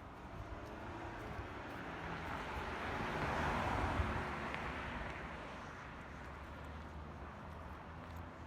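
A vehicle passing by: tyre and engine noise swells to a peak about three to four seconds in, then fades, over a steady low rumble.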